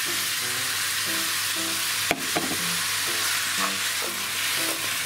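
Pork, cucumber and eggplant stir-frying in sesame oil in a frying pan, a steady sizzle as the freshly added vegetables are stirred and tossed with chopsticks. A single sharp knock comes about two seconds in.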